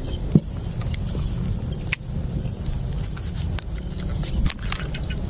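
Insects chirping in repeated short bursts of a high trill that stop about four seconds in, over a steady low rumble, with a few sharp clicks.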